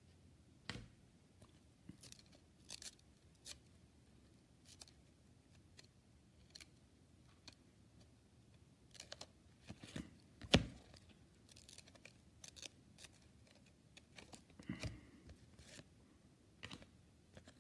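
Trading cards being handled and sorted through: scattered soft clicks and light rustles at irregular intervals, one sharper click about ten seconds in.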